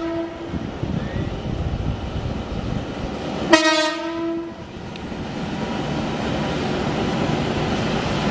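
Passenger train sounding a single-tone horn. The tail of one blast is heard at the start, and a second blast of about a second comes about three and a half seconds in. Under the horn is a steady rumble that grows louder in the second half.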